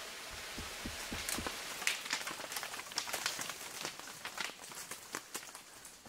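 Dry leaf litter crackling and rustling, with many irregular sharp crackles over a soft hiss.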